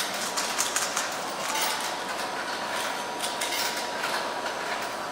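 Plastic speedcube being turned rapidly by hand, its layers clicking in quick, irregular clusters, over a faint steady tone.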